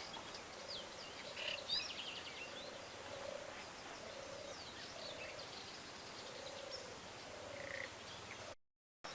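Wild birds calling faintly, with short chirps and whistles scattered over a low call that repeats about once a second. The sound cuts out briefly near the end.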